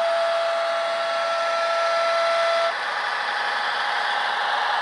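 HO-scale model train's electronic horn sounding one steady note that cuts off suddenly a little under three seconds in, over the steady running noise of the model on the track.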